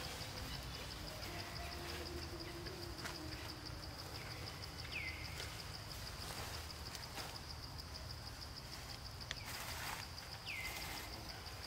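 A steady, high-pitched insect trill pulsing evenly throughout, with two short calls that fall in pitch, about five and ten seconds in.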